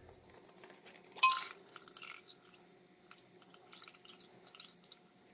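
Engine oil dripping and splattering as the plastic cartridge oil filter housing is unscrewed by hand and pulled off the engine, with one brief sharp noise about a second in and small taps and drips after it.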